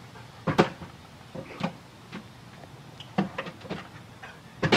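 A dog jumping up against a door, its paws knocking on it in about eight sharp, irregularly spaced knocks, the loudest about half a second in and at the end.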